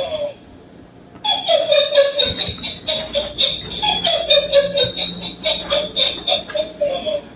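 Motion-activated electronic toy going off, set off by someone walking in front of it, and playing its recorded sound through a small speaker: a rhythmic run of falling electronic tones. It pauses briefly near the start, resumes about a second in, and cuts off near the end.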